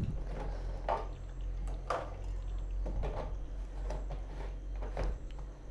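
Batter-coated raw banana slices deep-frying in hot oil in an aluminium kadai: a steady sizzle with a few brief clicks about a second apart, over a low steady hum.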